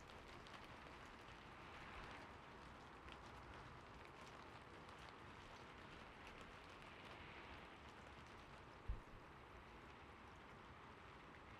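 Faint, steady rain sound, with one short, low thump about nine seconds in.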